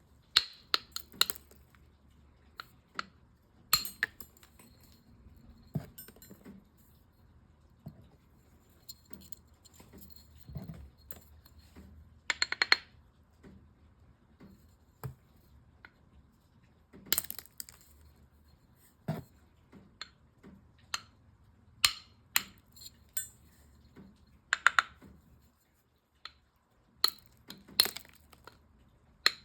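Cut rock slabs clinking and clacking against each other and on a hard surface as they are handled and set down, in scattered single knocks with a quick rattle of several clinks about twelve seconds in.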